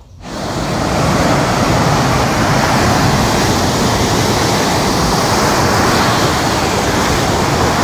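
Caribbean surf breaking and washing up a shallow beach: a loud, steady rush of water that swells in over the first second.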